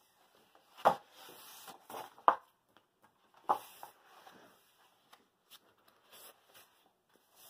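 Paperback coloring book being handled: paper rustling as the last pages are turned and the book is closed, with three sharp slaps of pages and cover coming down, about a second in, at two seconds and at three and a half seconds.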